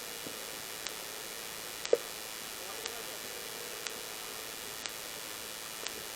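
Steady recording hiss with faint clicks once a second, one short sharp sound about two seconds in, and faint distant voices after it.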